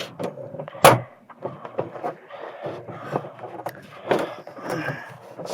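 Plastic tailgate trim panel being pried loose with a screwdriver: a sharp snap about a second in, then scattered clicks and scraping as the clips give.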